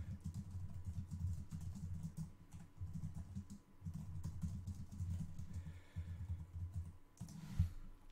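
Typing on a computer keyboard: a fast, continuous run of keystrokes, with one louder key press near the end.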